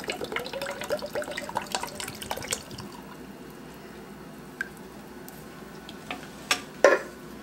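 Milk being poured from a can into a saucepan of boiling potatoes: liquid trickling and dripping into the pot, busiest over the first couple of seconds, then a faint steady hiss, with a few sharp clicks near the end.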